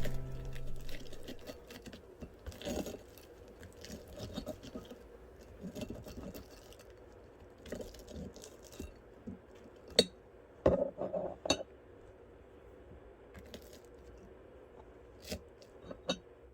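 Scattered light clinks and clicks of utensils on a dish, with soft crisp crunching as a freshly made croffle is handled and cut, including a few sharper clicks in the middle and near the end.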